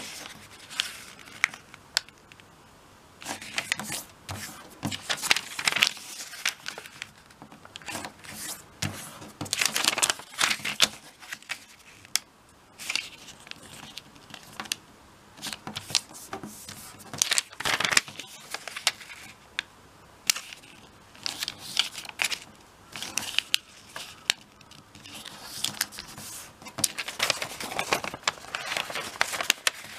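A square of origami paper being folded and creased by hand: irregular rustling and crinkling in bursts, with short, sharp strokes as the folds are pressed down.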